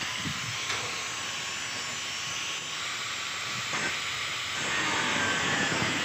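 Electric angle grinder with a thin cut-off disc cutting through the sheet-metal wall of an old bucket: a steady, high-pitched grinding hiss over the motor's whine, a little louder in the second half.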